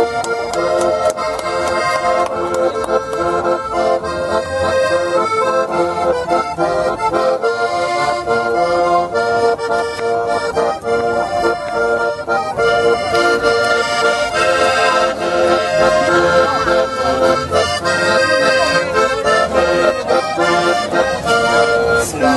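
Button accordion playing a tune without a break, a melody over rhythmic accompaniment.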